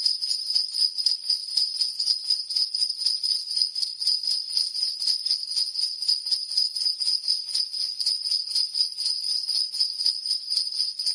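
Jingle bells (sleigh bells) shaken continuously in a quick, even rhythm, a bright high ringing jingle with no pause.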